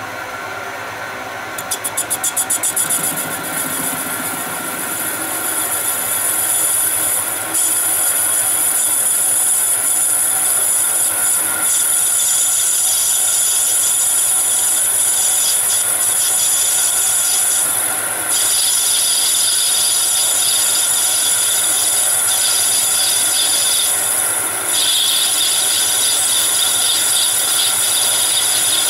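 Metal lathe turning a brass bar while a parting-off tool with a 2 mm carbide insert cuts a groove into it: the machine's steady running with a high, ringing cutting tone. There is a brief fluttering pulse about two seconds in, and the sound grows louder at about seven seconds as the cut takes hold, then stays steady.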